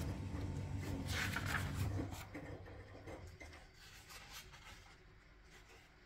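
Paper brochure rustling and crinkling as it is handled and turned over, loudest about a second in, then faint rustles. A low hum underneath stops about two seconds in.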